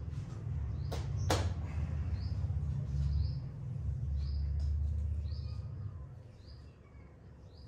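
Low handling rumble and two sharp clicks about a second in as a stock Royal Enfield Continental GT 650 handlebar mirror is unscrewed. A small bird chirps repeatedly, about once a second.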